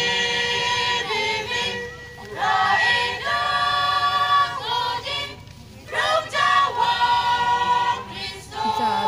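A women's church choir singing, in long held phrases with short breaks about two and five and a half seconds in.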